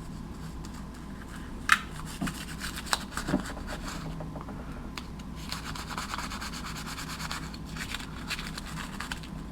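Toothbrush scrubbing foam gun cleaner over the dirty carbon-fouled metal parts of a Glock 17 pistol: a fast scratchy brushing, busiest in the second half, with a few light clicks and taps of the parts being handled.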